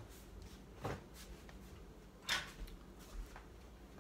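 A few light knocks from things handled in a kitchen, the loudest a brief noisy knock just past halfway through.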